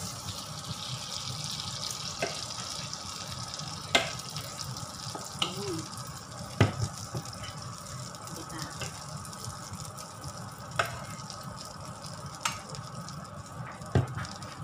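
Butter sizzling in a small nonstick frying pan, the hiss fading partway through as pancake batter goes into the pan. Several sharp clinks of a utensil against the pan and a metal mixing bowl.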